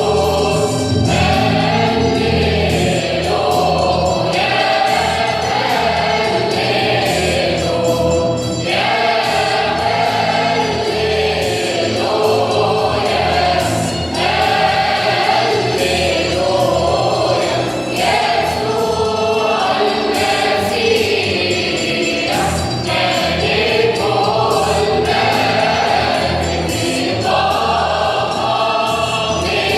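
Mixed choir singing a Coptic doxology for the Resurrection feast, with steady accompaniment underneath.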